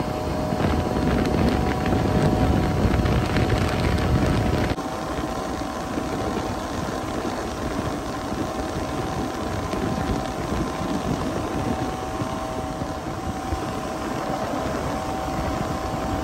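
Boat's outboard motor running steadily underway, with wind buffeting the microphone; the heavier rumble drops off suddenly about five seconds in.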